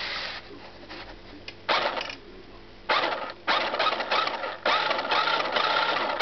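Small electric drive motor and gearbox of a battery-powered 1:16 scale Porsche Cayenne toy car whirring in short bursts, starting and stopping several times, the last run the longest.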